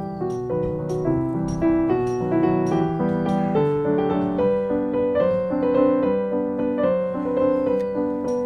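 Background piano music, a melody of changing notes.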